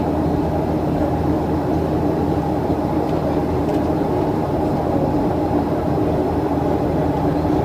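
Steady cabin noise of a Boeing 737-800 in flight: the engines and airflow make a constant hum with several held tones.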